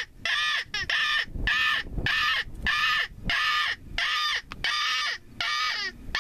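Predator call used for coyote hunting, sounding a rapid string of loud, harsh, crow-like cries, about two a second.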